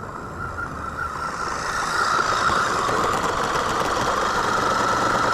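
RC car motor whining at a steady pitch with drivetrain noise, growing louder over the first two seconds and then holding steady.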